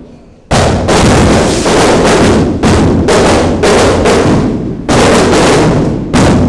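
Firecrackers going off in a rapid string: heavy bangs about once a second with crackling between them, set off to mark the elevation at the consecration of the Mass.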